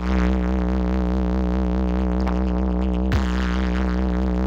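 Electronic music played loud through a large DJ sound system: a sustained, wavering synth tone over a heavy, steady bass drone, with one short sharp hit and downward sweep about three seconds in.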